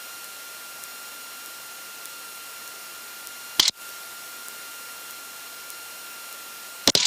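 Steady hiss of an aircraft intercom audio feed with a faint steady high tone running through it, broken by two short bursts of static: one about three and a half seconds in and one near the end.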